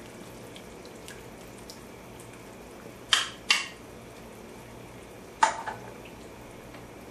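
Coconut water trickling from a can through a fine-mesh strainer into a stainless skillet of braising pork, with three sharp metallic clinks of the kitchenware: two close together about three seconds in and one about five and a half seconds in.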